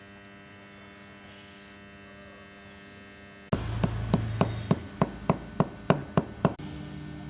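Electrical hum with a few faint bird chirps. About three and a half seconds in, an electric welding arc starts with a loud, sharp crackle repeated about three times a second for some three seconds, typical of stitching an arc across a gap. It then falls back to a steady hum.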